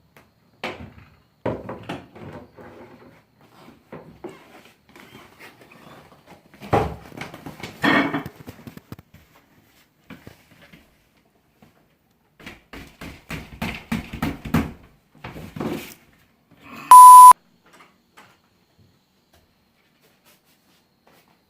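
A single loud electronic beep, one steady mid-pitched tone about half a second long, sounds near the end. Before it come scattered quieter knocks, thumps and rustling.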